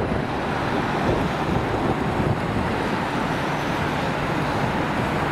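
Airbus A330-200 jet airliner's twin General Electric CF6-80E1 turbofans at approach power, a loud steady rumbling roar as it flies low just past overhead on final approach with landing gear down.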